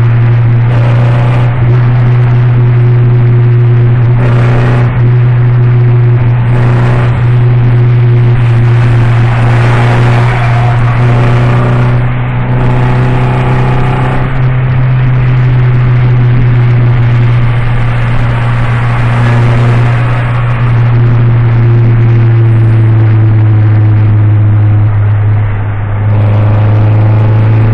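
Ford Focus 2.5 engine and exhaust running with a loud, deep, steady drone that holds nearly the same pitch throughout, dipping slightly in level a couple of times.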